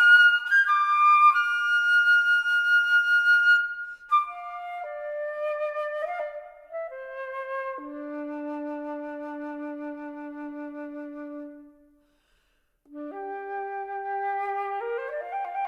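Solo flute playing. A fast upward run leads into a high held note, then the phrases fall step by step to a long low note that fades away into about a second of silence. The line then resumes softly and climbs in a quick rising run near the end.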